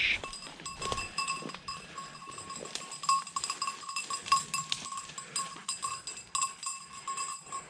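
A small bell on the Gordon setter's collar ringing irregularly as the dog works through the brush, a steady bright ring that swells and fades with its movement. Faint rustling of twigs and dry leaves runs underneath.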